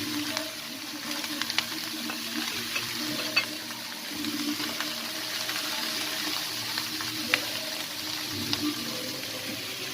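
Sliced vegetables sizzling in olive oil in a pot, a steady hiss broken by a few sharp clinks of stirring.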